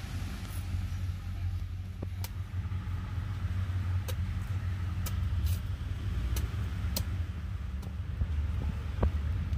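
Sharp knocks of a knife blade striking a green coconut, about eight irregular blows, the last near the end the loudest, over a steady low rumble.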